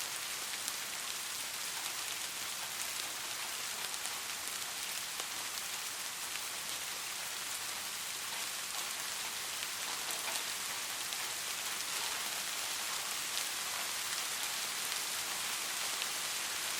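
Steady light rain falling on a surface, an even hiss dotted with the ticks of individual drops.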